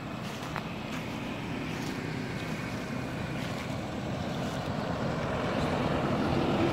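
A steady low rumble of a motor engine, growing louder toward the end, with a few faint ticks over it.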